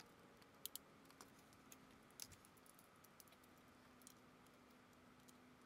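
Near silence broken by a few faint, sharp, scattered clicks of a small inch-pound torque wrench working on engine bolts.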